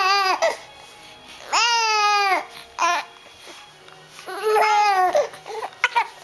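Young infants cooing: a few drawn-out, high-pitched vowel sounds, each about a second long, holding steady and then falling away at the end, with quiet gaps between them and a couple of short squeaks near the end.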